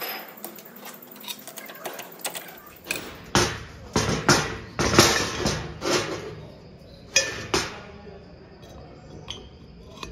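Metal clinks and knocks of starter motor parts being handled: the armature shaft and its drive-end housing knocking together as they are fitted. The sharp knocks come in a cluster from about three to eight seconds in.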